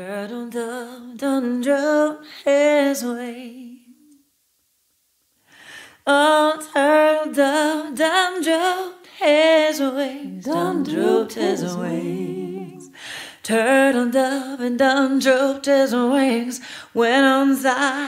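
A woman's voice singing a spiritual a cappella, with vibrato on the held notes. It breaks off for about a second and a half around four seconds in.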